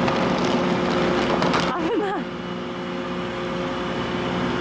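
Car ferry's engines running while docked: a steady low hum over a constant noise.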